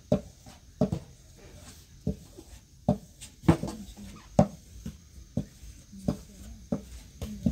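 Wooden rolling pins knocking and rolling on large metal trays as thin bread dough is rolled out, giving irregular sharp knocks about once or twice a second, some with a short metallic ring.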